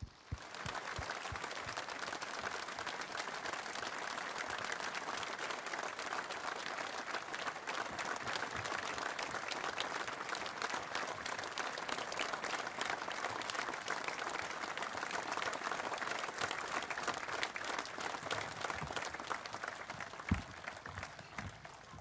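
A large outdoor crowd applauding: many hands clapping together in a dense, even patter that starts suddenly, holds steady and tapers off near the end. A single short low thump comes about two seconds before the applause dies away.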